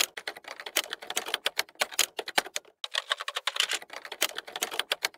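Fast, irregular clatter of typing keystroke clicks, a sound effect laid over an animated title card, with a short break a little past halfway.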